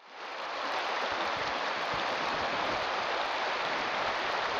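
Steady rushing of a shallow river current running over gravel, fading in over the first second.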